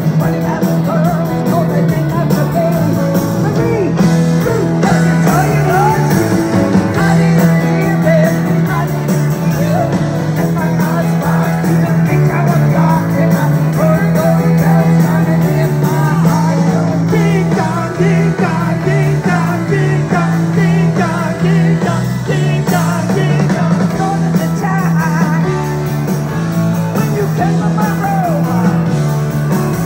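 Live rock band playing loud, recorded from within the audience, with a steady, moving bass line under the music.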